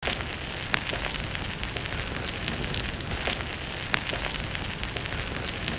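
Wood fire crackling: a steady hiss with irregular sharp pops and snaps.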